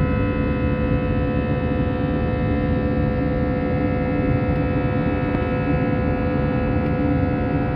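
Airbus A320's turbofan engines at climb thrust, heard from inside the cabin: a steady drone of engine and air noise with several steady whining tones running through it.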